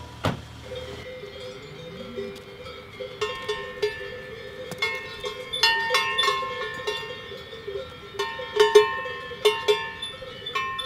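Cowbells clanking irregularly: several bells of different pitches striking and ringing, growing busier after a few seconds. A single sharp click comes just after the start.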